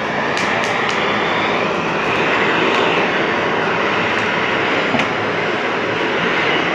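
Hose-fed gas blowtorch burning with a loud, steady hiss as its flame heats old laminate on plywood so it can be scraped off, with a few faint clicks from the scraper.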